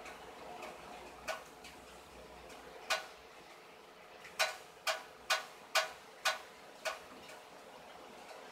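Sharp clicks, one at a time at first, then a quick run of six at about two a second, over a steady hum.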